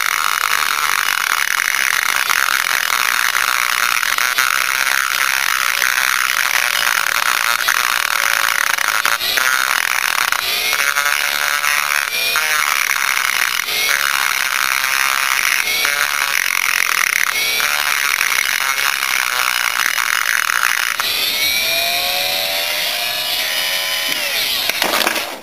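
Dremel rotary tool with a carbide cutter grinding the aluminum transfer port of a Yamaha Blaster two-stroke cylinder: a steady high-pitched whine. Near the end the pitch shifts as the bit comes off the metal, and the tool winds down at the very end.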